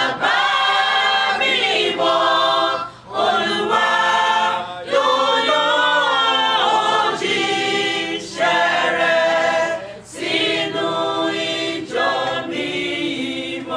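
Mixed choir of women's and men's voices singing unaccompanied, in sustained phrases broken by short pauses.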